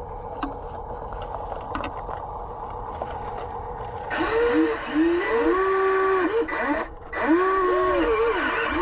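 Radio-controlled Volvo EC160E excavator model's motors running with a low steady hum, then from about four seconds in whining louder, the pitch rising and falling in arcs as the machine works and swings. The whine drops out briefly near seven seconds and comes back.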